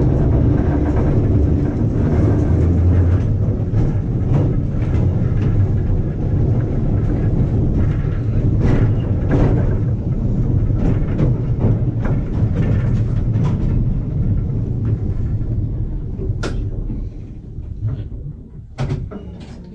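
Vintage electric tram running along its track, heard from inside the wooden saloon: a steady low rumble with short knocks and clicks from the wheels and body, growing quieter near the end.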